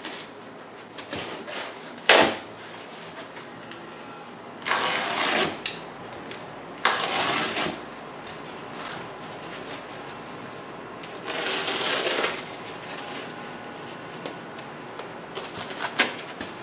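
A knife cutting through a thick sheet of white packing foam in several separate rasping strokes, each about a second long, with a sharp knock about two seconds in.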